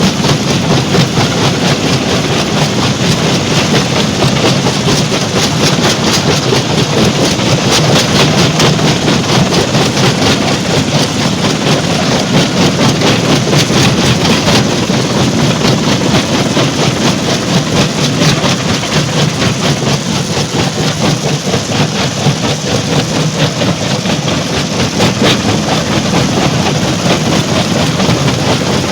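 Stone crusher plant machinery running: a steady, loud heavy-machine drone with a dense, continuous clatter of rock being crushed.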